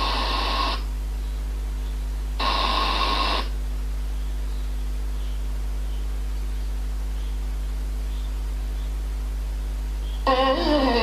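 Artis BT90 speaker's FM radio auto-scanning for stations: static hiss that cuts off about a second in, a second burst of static lasting about a second, and a muted gap between. Near the end a station's broadcast comes through. A steady low hum runs underneath.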